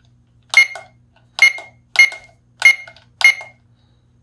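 Five short electronic beeps from a talking alarm clock as its setting buttons are pressed. Each beep starts sharply and dies away quickly, the beeps coming irregularly about half a second to a second apart.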